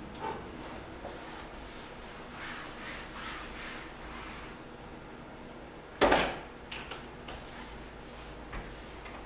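Cloth wiping a kitchen countertop in soft swishes, then a sharp clack about six seconds in as a flat board is set down on the counter, followed by a few lighter taps.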